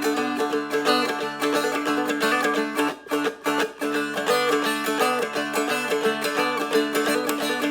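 Seagull Merlin, a dulcimer-style fretted string instrument, playing an instrumental break: a picked melody over steady ringing drone strings, in a bouncy country rhythm, with a short gap about three seconds in.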